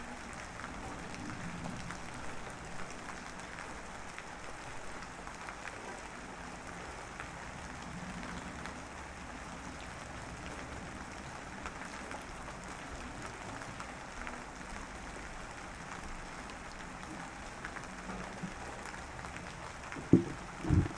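Steady drizzling rain: an even patter of light drops. Two dull thumps come close together near the end.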